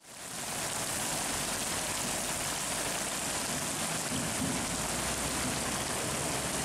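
Heavy rain falling with a steady hiss, fading in at the start, while a Hino Ranger diesel truck drives through flood water, its engine a low rumble under the rain.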